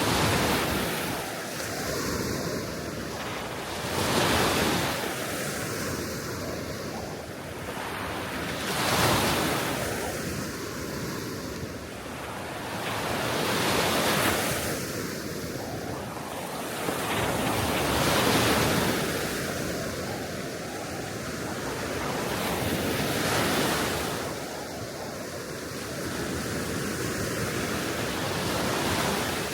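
Gentle sea waves washing onto the shore, each wash swelling and fading about every four to five seconds, with steady wind underneath.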